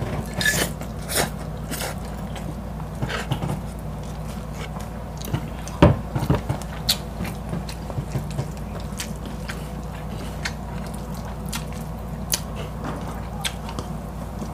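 Close-miked eating sounds of two people: chewing and biting, with many short wet clicks and smacks scattered throughout over a steady low hum. One louder knock comes about six seconds in.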